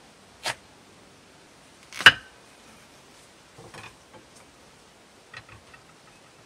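Knife cutting through a watermelon on a wooden cutting board: a light click half a second in, a sharp crack about two seconds in, then a few soft knocks and clicks as the melon is split into halves.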